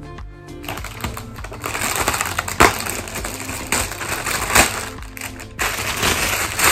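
Gold foil balloon crinkling and crackling as it is squeezed and crumpled in the hands, starting about a second in. Background music plays underneath.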